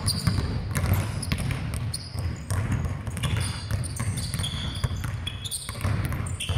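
Basketballs dribbled on a hardwood court: a rapid, irregular run of bounces from several balls in a large, empty arena. Short high-pitched sneaker squeaks now and then.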